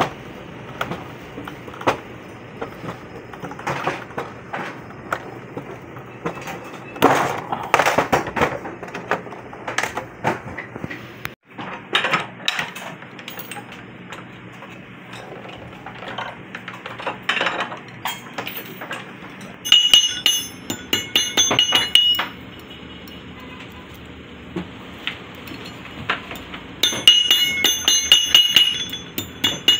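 Hammer tapping on metal over a steel grooved block: two runs of quick, ringing strikes, one about two-thirds of the way through and one near the end. Earlier come scattered clicks and snips of hand metal shears cutting gold sheet. Background music runs throughout.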